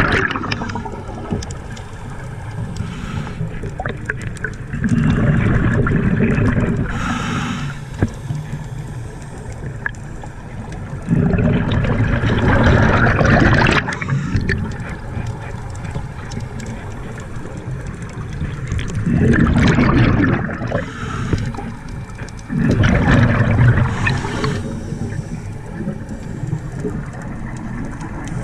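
Scuba diver breathing through a regulator underwater: a surge of exhaled bubbles rushes out four times, about every six to eight seconds, over a steady underwater hiss.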